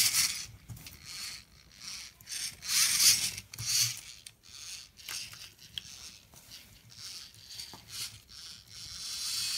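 Plastic VEX IQ robot parts rubbing, scraping and clicking as the robot is handled and turned over by hand: several irregular rustling bursts, the loudest around three seconds in, with scattered small clicks.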